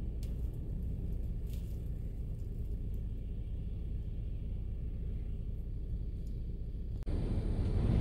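Strong downslope wind over 70 mph blowing snow, heard as a steady low rumble. About seven seconds in, the sound changes suddenly to a louder, fuller rush of wind.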